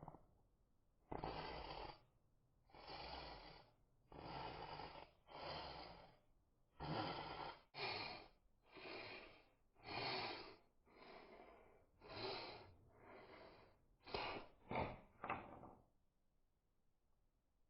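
A person blowing in repeated puffs through a fire-blowing pipe to fan a campfire: about fourteen breaths, roughly one a second, the last few shorter and quicker.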